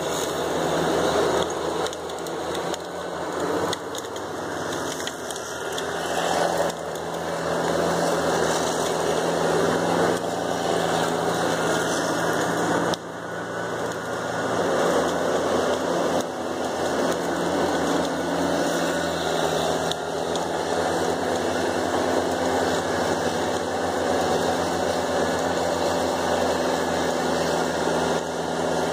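John Deere 548E grapple skidder's diesel engine running steadily, a low drone. Brush and branches crackle under the machine at intervals in the first half.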